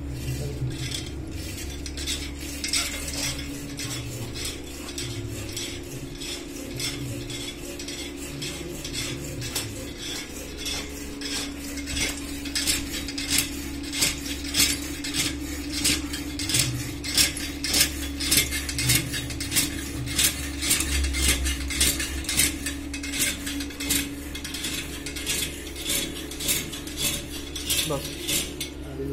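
Pedal-powered hacksaw running: a bicycle chain drives a cam that pushes the blade back and forth, each stroke rasping through the pole with a clattering of the metal linkage and frame. The strokes come in a steady rhythm that grows louder and more distinct about twelve seconds in.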